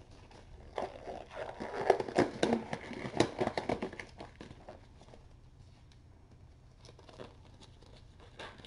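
Crinkling and rustling of something being handled, a dense run of small crackles starting about a second in and lasting about three seconds, then only a few faint rustles.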